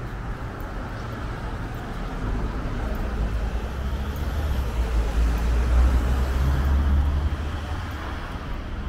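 A motor vehicle drives past on the street. Its engine and tyre rumble swells from about two seconds in, is loudest around six seconds, and fades near the end, over steady background traffic noise.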